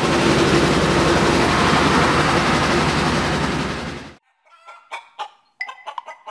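Loud, steady vehicle or road noise that cuts off abruptly about four seconds in. Then come chickens clucking in short, sharp, repeated calls.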